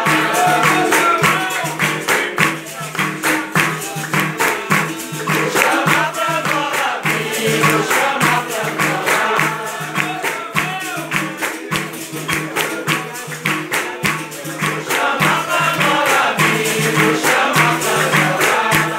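Capoeira roda music: berimbaus, a pandeiro and an atabaque drum playing a steady rhythm while the circle sings together in chorus and claps along.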